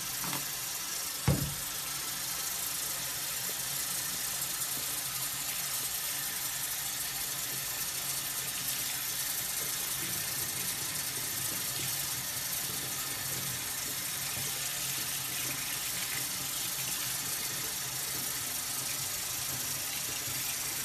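Tap water running steadily from a bathroom faucet into a sink, with one short knock about a second in.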